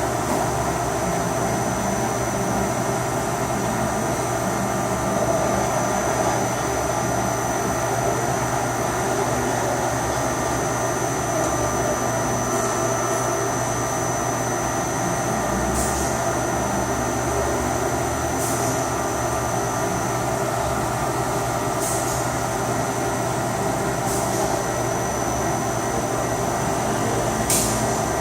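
CNC HS-1000 machine running its three axes: a steady mechanical whir under a constant high whine, with short hissy bursts every two to three seconds in the second half.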